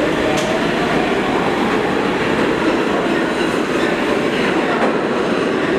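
R46 subway train running past, a steady loud rumble of wheels on rail with occasional sharp clicks over the rail joints.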